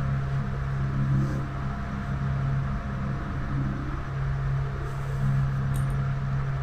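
A steady low hum of a running motor or machine, unchanging, with a light hiss over it.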